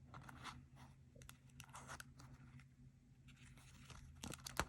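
Faint rustling and sliding of trading cards being leafed through by hand, in scattered light strokes, with a sharp click near the end.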